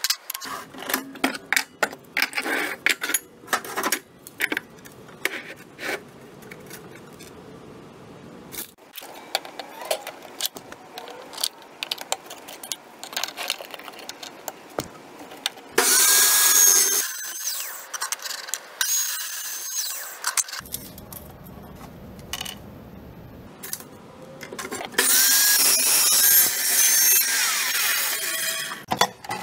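Metal clanks and knocks as steel bar stock is handled, then a DeWalt abrasive chop saw cutting steel flat bar twice, each cut a loud grinding rush with a high whine lasting about four seconds.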